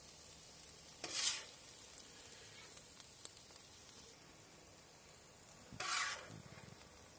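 Meat stew being scooped with a spatula out of a hot saj pan and laid onto a ceramic platter: a faint steady sizzle, broken twice, about a second in and near the end, by a short loud burst of sizzling and scraping as the spatula goes into the pan.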